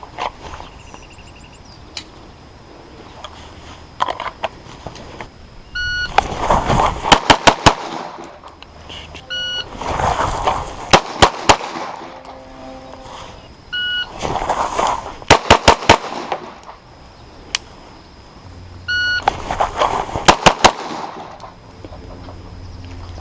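Glock 34 9mm pistol firing four quick strings of several shots each. Each string comes about a second after a short electronic beep from a shot timer's start signal.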